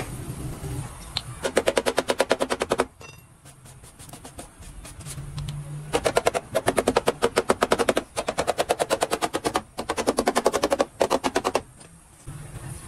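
Rapid metallic tapping of a small auto-body hammer on the sheet-steel rocker panel along its fresh welded seam, about nine blows a second. There is one short run of taps, then after a pause a longer stretch with a few brief breaks.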